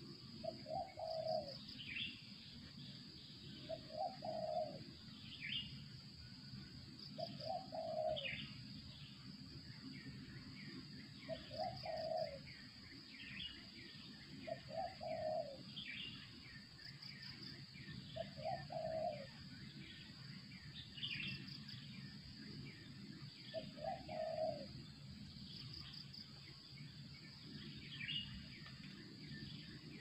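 Spotted dove (terkukur) cooing: a short low coo phrase repeated seven times, roughly every three and a half seconds. Another bird gives short, high, falling chirps between the coos, over a steady high insect drone.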